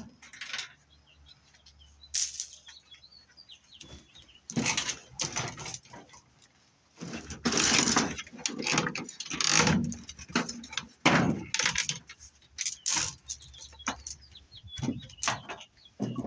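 Armored BX cable being handled and sorted: irregular rattling and clattering of the spiral metal sheathing, busiest in the middle stretch.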